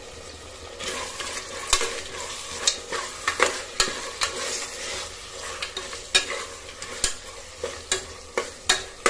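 Mutton pieces frying in oil in an aluminium pressure cooker, sizzling as a metal spoon stirs them, the spoon knocking and scraping against the pot again and again. The stirring starts about a second in.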